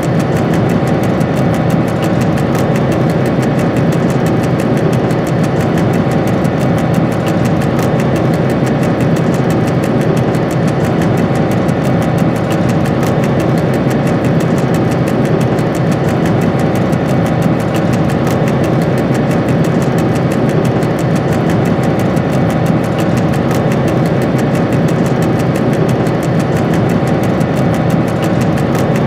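Diesel engine of a Dr12 locomotive running steadily, heard from inside the cab as the train rolls slowly along.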